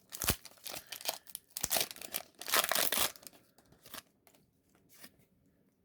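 Foil Pokémon booster pack being torn open and its wrapper crinkled: a series of short rips and rustles, the longest and loudest tear about two and a half seconds in, dying away after about four seconds.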